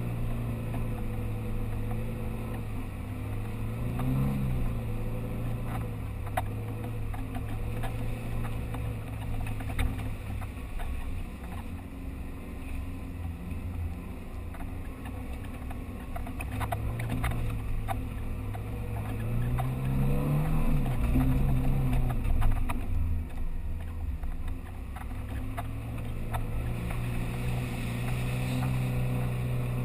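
Off-road 4x4 vehicle's engine running at low revs under load, its pitch rising briefly about four seconds in and again about twenty seconds in, with scattered knocks and rattles.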